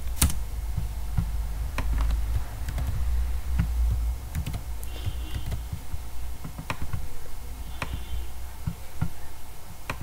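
Computer keyboard keys pressed singly: a few scattered, separate clicks a second or more apart, over a steady low hum.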